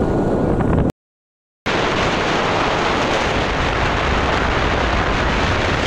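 Wind rushing over the microphone of a moving two-wheeler, with its road and engine noise, a steady rushing noise. It cuts out completely for under a second about a second in, then picks up again just as before.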